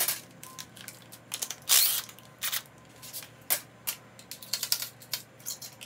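Irregular metal clicks and clinks of a wrench and loose hardware against a VW air-cooled engine case as its nuts are taken off, with one longer rasp about two seconds in.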